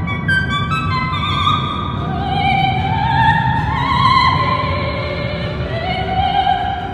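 Operatic soprano singing long held notes with vibrato, the line climbing higher through the middle, over an orchestral backing.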